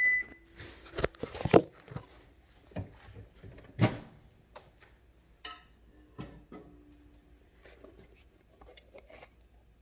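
A single microwave oven beep right at the start, then kitchen handling: a few sharp knocks and clatters of dishes and containers, loudest about a second and a half in and again near four seconds, followed by softer scattered taps.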